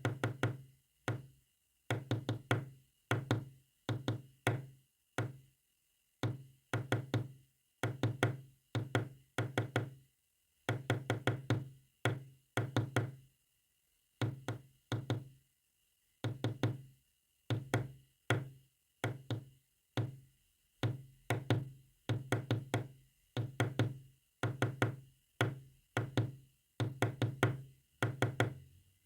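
Knocking tapped out as a code in the manner of Morse code: quick clusters of two to six knocks separated by short pauses, each knock dying away with a low ring.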